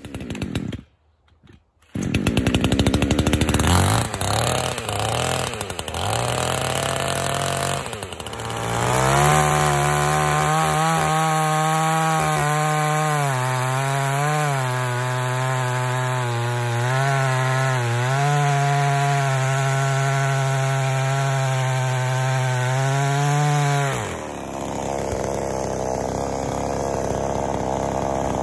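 Gas chainsaw running while cutting firewood: it comes in about two seconds in, revs unevenly, then holds at high revs with the pitch dipping and rising under load. Near the end the engine note gives way to a harsher, noisier sound.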